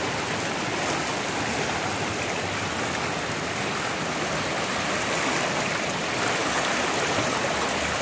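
Steady rushing of a swollen, muddy river in flash flood, the fast water churning past the bank.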